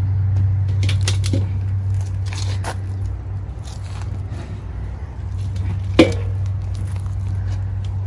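Cuts of raw venison being handled and set into a stainless steel bowl, with soft wet handling noises and scattered small clicks, and a sharp knock about six seconds in as a leg goes into the bowl. A steady low hum underlies it.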